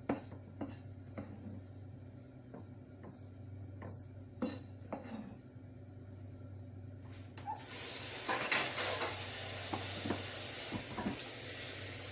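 Clinks and knocks of a pot and metal utensils, then about halfway through a sudden loud sizzle of food hitting hot oil in the pan, with a few utensil knocks over the frying.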